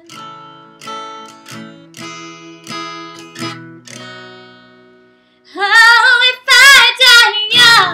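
Slow strummed chords on a steel-string acoustic guitar, ringing and dying away to almost nothing about five seconds in. A woman's voice then comes in loud and close, singing with a strong vibrato.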